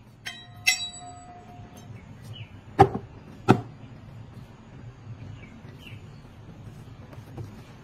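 Two blades struck together twice, each giving a ringing metallic clang, followed by two loud, sharp hits about three quarters of a second apart.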